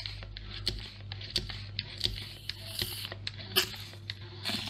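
Handheld manual espresso maker being hand-pumped to press hot water through the coffee: a string of irregular clicks and short squishing strokes from the pump, over a steady low hum. Espresso starts to run out near the end.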